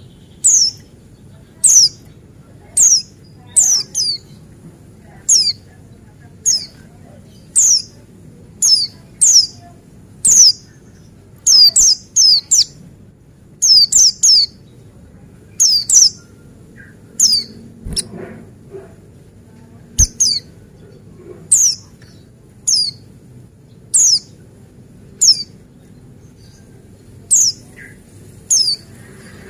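Pleci Buxtoni white-eye calling: short, sharp, high chirps that fall in pitch, repeated about once a second and sometimes in quick pairs or threes. Two faint low knocks sound about two-thirds of the way through.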